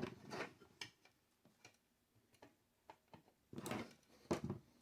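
Scattered small clicks and taps of plastic mounting pins and a circuit board being handled and pushed free, with a couple of louder knocks near the end.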